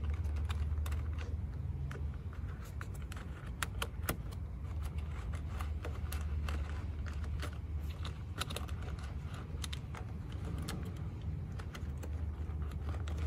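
Irregular light clicks and plastic rattles of wiring being tucked by hand into a pickup's door sill trim channel, over a steady low hum.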